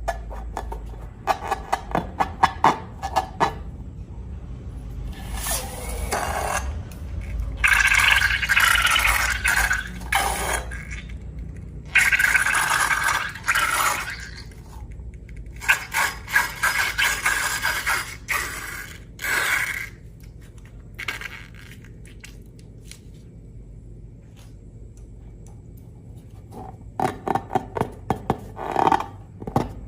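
Slime being squished and worked by hand: runs of sticky clicks and pops, with longer scraping squelches in between.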